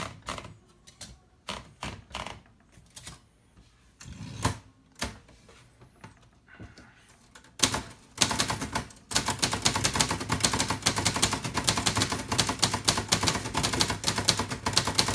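Hispano Olivetti Studio 46 manual typewriter with glass keys: a few scattered clicks and knocks as the paper is rolled in and set. Then, from about eight seconds in, fast steady typing, the typebars striking the platen in a rapid run of clicks.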